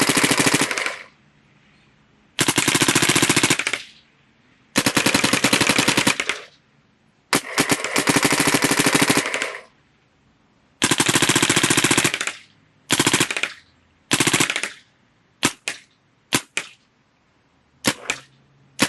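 Electronic paintball markers, a Planet Eclipse Ego LV2, an Ego LV 1.6 and a DLX Luxe TM40, firing in turn in ramping mode. The shots come as rapid bursts of many per second, each burst lasting one to two seconds. Near the end they give way to short bursts and single pops.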